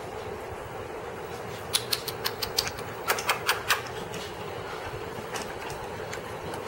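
Chihuahua puppy claws clicking on a tile floor as the puppies scamper: a quick run of about a dozen sharp taps over about two seconds, then a few scattered taps near the end, over a steady low hum.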